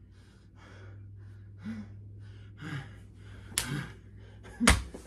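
A person breathing hard in quick gasps, with a few short strained grunts, and two sharp slaps, one about three and a half seconds in and a louder one near the end.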